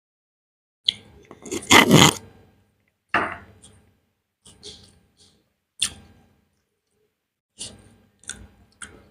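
Close-miked eating sounds of a mouthful of beef biryani: chewing and wet mouth noises in short separate bursts, the longest and loudest about two seconds in.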